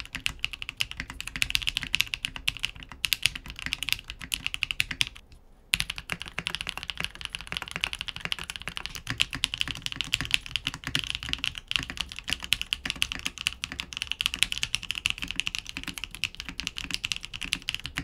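Keebfront Vanguard 65 mechanical keyboard, built plateless, being typed on quickly: a dense stream of key clacks with one short pause about five seconds in. The plateless build gives a full, crisp sound with no hollowness.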